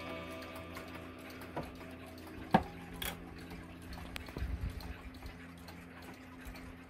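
The last stroke of a Japanese box clock's hour strike ringing away and fading, followed by a few light clicks and a sharp wooden knock about two and a half seconds in as the case door is shut, with a brief low handling rumble after.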